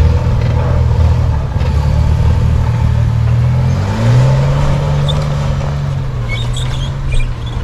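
Engine of a lifted four-wheel-drive SUV running under load as it drives up a snowy trail, its pitch rising a little past three and a half seconds in and then holding steady.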